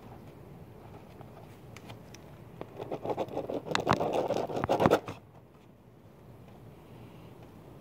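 Pen scratching and scraping across a paper form laid on a cardboard box as a large signature is scrawled. It starts about two and a half seconds in, gets loud, and stops abruptly about five seconds in.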